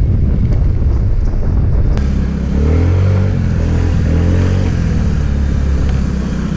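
Honda Ruckus scooter's 49 cc four-stroke single riding along with wind rushing over the microphone; about two seconds in the engine note falls as the scooter slows, then settles into a steady idle.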